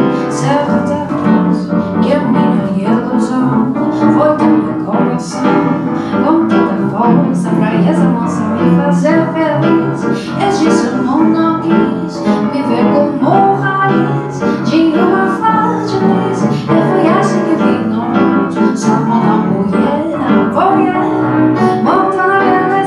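Live jazz band: a woman singing a Brazilian song, accompanied by piano, upright bass and drums.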